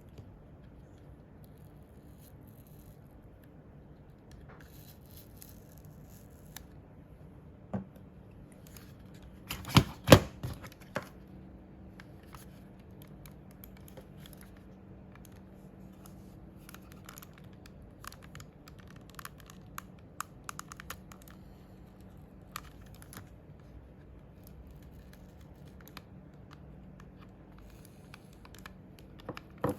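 Small plastic clicks, taps and scratching from a computer mouse being handled and worked on, with a cluster of louder knocks about ten seconds in, over a faint steady low hum.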